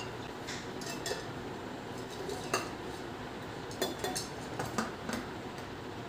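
Glass and ceramic clinking as a potted plant and a glass cloche are set down on a glass saucer on a tray: several light clinks, the sharpest about two and a half seconds in and a cluster around four to five seconds, over a steady low hiss.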